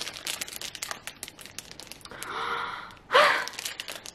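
Crinkling of a clear cellophane gift bag as it is handled, a run of small rustles and crackles. Just after three seconds a short voiced sound from the woman, like a sigh or a brief hum, stands out as the loudest moment.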